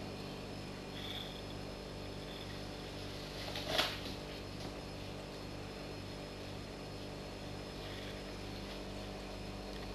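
Steady mechanical hum with a low pulse about twice a second, and one short rustle a little under four seconds in.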